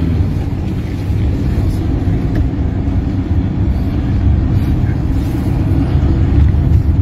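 Steady low rumble of a vehicle driving on a road, heard from inside the cabin: engine and road noise.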